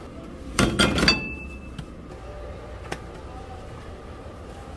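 Metal baking molds and tray clattering at an egg-bread stall: a quick cluster of sharp clanks about half a second in, one leaving a short metallic ring, then a single light tick near the three-second mark.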